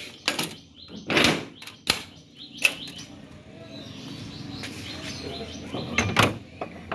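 Several sharp knocks and bumps, the loudest about a second in and again near the end, over a steady low hum that sets in about three seconds in.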